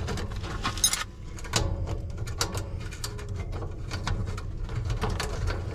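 Wrench and socket loosening the bracket nuts on an electric sauna stove: scattered metal clicks and scrapes over a steady low hum.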